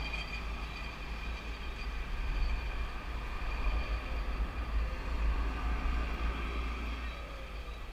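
Steady low rumble of wind buffeting the microphone, over faint outdoor street ambience.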